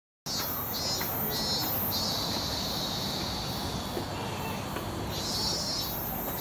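Cicadas buzzing in the trees over steady outdoor background noise: a high sizzling that starts abruptly, pulses about four times, holds steady for a couple of seconds, then swells again near the end.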